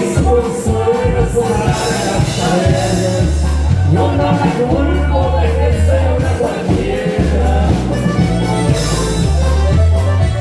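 Latin dance band music with a pulsing bass line and melody.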